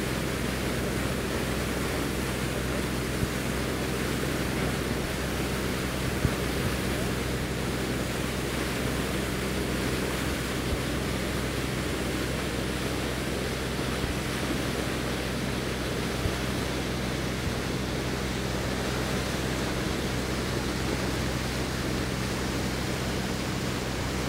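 Steady low drone of a riverboat's engine, several even hum tones under a constant rushing hiss of water and wind passing the moving boat.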